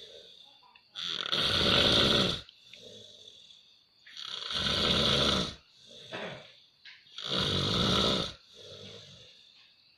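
A person snoring heavily: three loud, rasping snores about three seconds apart, each followed by a softer, quieter breath.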